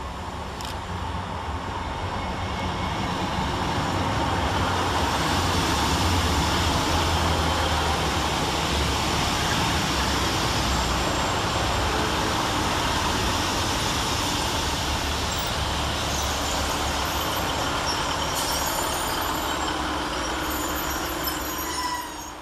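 Two coupled Class 150 Sprinter diesel multiple units running into the station: diesel engines and wheels on rail, growing louder over the first six seconds as the train nears, then steady as the carriages pass.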